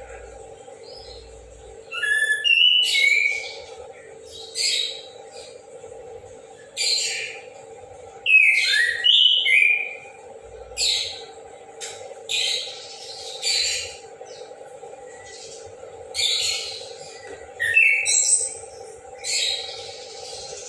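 Chestnut-capped thrush singing in full voice: a string of short, loud, high phrases, some with quick sliding notes, repeated every second or two.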